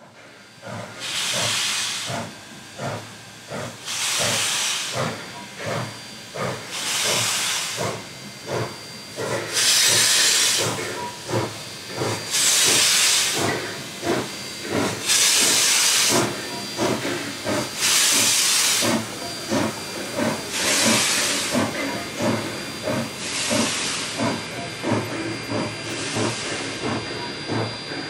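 NSW 32-class steam locomotive 3265 working past with its train: loud hissing bursts of steam about every three seconds over a quicker clatter of knocks from the moving train.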